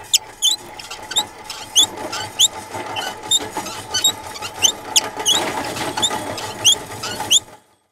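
Cartoon sound effect of a small hand-pulled cart: its wheels squeak in short rising chirps, roughly one every half second, over a low rolling clatter and a faint steady hum.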